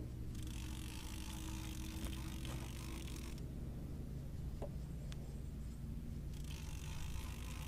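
Okuma Classic XT baitcasting levelwind reel being cranked in two spells, a whirring, gear-driven rasp, as a hooked blue catfish is reeled in against the rod's bend. A steady low hum lies under it.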